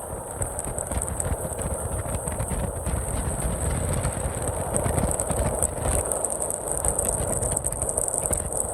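A passenger train passing, its wheels rattling and clicking over the rail joints and growing louder over the first few seconds.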